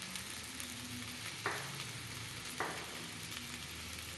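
Onion uthappam sizzling steadily as it fries in oil on a hot griddle over medium flame, with two light knocks about a second apart near the middle.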